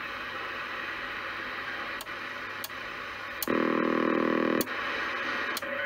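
President Zachary T CB radio's speaker hissing with receiver static while the channel selector is stepped up one channel at a time, a sharp click at each of five steps. On one channel a steady buzzing tone with many overtones comes through for about a second.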